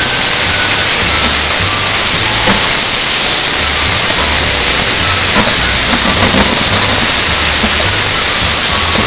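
Meat and onions sizzling in a hot stainless steel wok as they are browned and stirred: a loud, steady hiss. Background music with a low bass line plays underneath.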